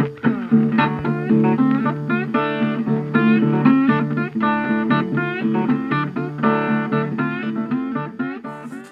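Intro music: acoustic guitar picking a melody over held bass notes, fading out near the end.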